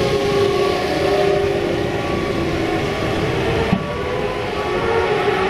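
A steady drone of several racing motorcycle engines heard from afar, a mix of held pitches with no single machine standing out.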